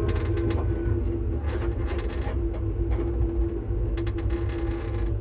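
Class 334 electric multiple unit on the move, heard at the gangway between cars: a steady traction-motor hum at one pitch over a low running rumble, with a few brief rattles and clicks about four seconds in.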